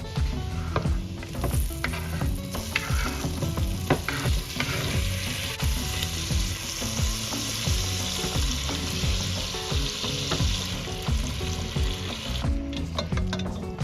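Food sizzling as it fries in a pan: a steady hiss that starts about a second in and stops suddenly near the end, with a few light clicks.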